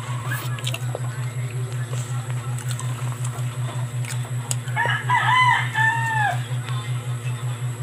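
A rooster crowing once, about five seconds in: a few short rising-and-falling notes ending in a longer arched one.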